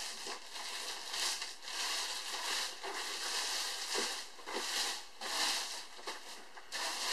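Clear plastic bag crinkling and rustling irregularly as a foam model-aeroplane fuselage is pulled out of it.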